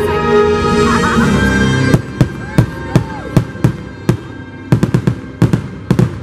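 Show music, then from about two seconds in a rapid volley of fireworks aerial shells bursting, over a dozen sharp bangs in four seconds, with the music going on more quietly underneath.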